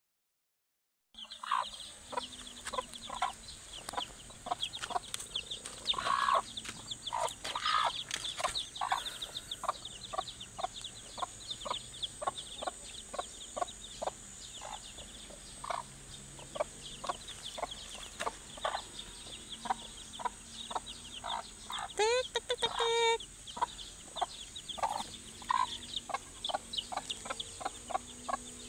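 A mother hen clucking over and over to her days-old chicks, with the chicks cheeping quickly and continuously. About two-thirds of the way through there is one longer, louder call that rises in pitch.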